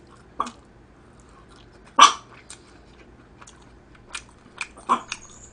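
A small dog barks once, short and sharp, about two seconds in, with softer clicks and mouth sounds of eating with chopsticks around it.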